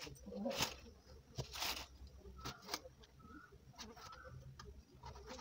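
Soft rustling and clicking of vegetables being handled and cut on a boti, Malabar spinach stems and then an eggplant, with a few faint short bird calls in the background.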